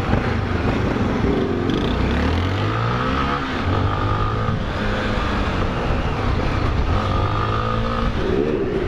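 Motorcycle engine pulling as the bike rides down the street: it revs up about a second and a half in, drops in pitch at a gear change, runs steadily, then revs up again near the end, with wind noise on the microphone. The bike is most likely the channel's Honda XRE 300 trail bike, a single-cylinder.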